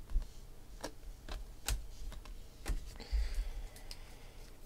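Baseball trading cards being flipped through and handled: scattered light clicks, with a short sliding rustle about three seconds in.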